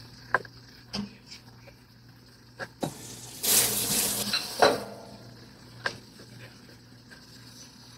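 A used mixing bowl being washed at the kitchen sink: scattered clinks and knocks of the bowl, with a short rush of tap water about three and a half seconds in.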